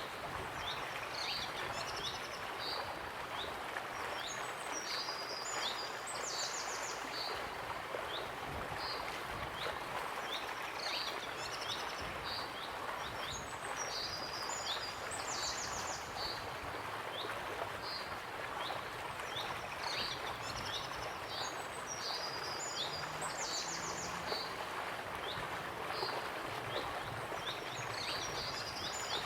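Steady rush of a waterfall with birds singing over it: short high chirps and quick trills in a sequence that recurs about every nine seconds.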